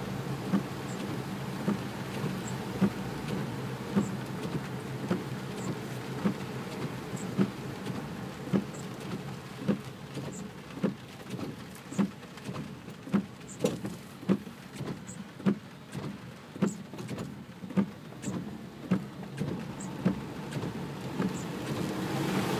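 Heavy rain drumming on a Suzuki Jimny, heard from inside the cabin over the low hum of the engine. The windscreen wipers sweep with a regular short thump, about every second and a half at first and more often in the second half.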